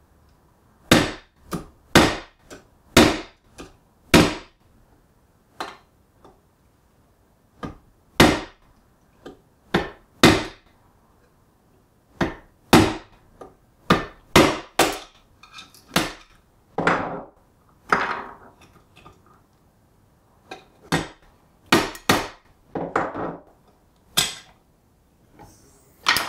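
Claw hammer blows on the Simplex push-button lock of a steel pistol box, some two dozen sharp metallic strikes in irregular groups with short pauses. The blows are knocking the lock's unreinforced combination chamber through the lid.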